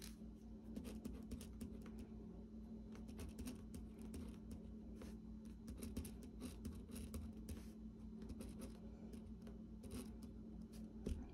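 Pen writing on paper: faint, irregular scratching strokes of handwriting, over a steady low hum.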